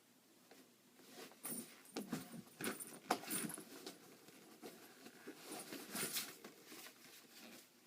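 Rummaging through hockey gear and packaging: irregular rustling with clicks and knocks, busiest in the first half and again in a short flurry about six seconds in.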